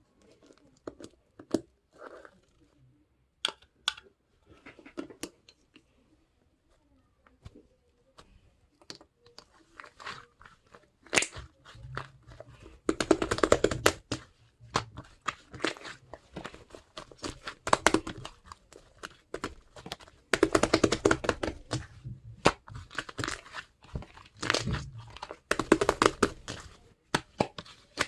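Close-up handling of crinkly material: rustling, crinkling and tearing, with many sharp taps and clicks. It is sparse at first and busier in the second half.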